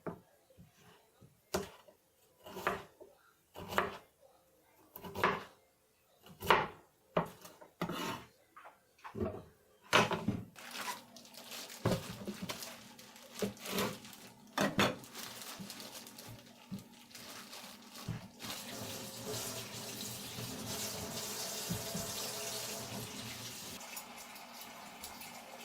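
Irregular knocks and scrapes for about the first ten seconds, then water from a tap running steadily into a sink.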